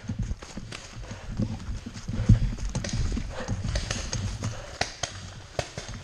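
Running footsteps on woodland ground: heavy, uneven footfalls a few times a second, each jolting the marker-mounted camera, with rattling of the paintball marker.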